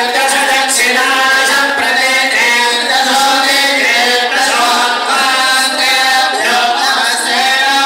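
Hindu devotional chanting: voices intoning a mantra to a held, wavering melody.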